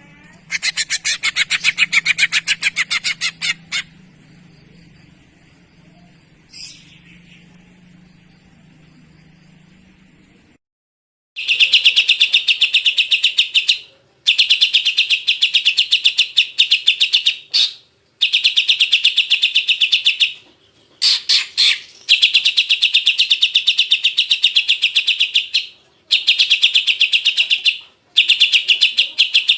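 Bird-song masteran (training recording) for cucak ijo: loud, fast, even series of harsh chattering notes in bouts of about two to three seconds, with short pauses between bouts. A low hum lies under the first series and stops at a sudden cut partway through.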